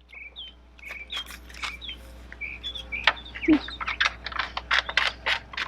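Small birds chirping in short, quick calls over a low steady hum; from about three seconds in, a fast run of sharp clicks and knocks grows louder than the chirps.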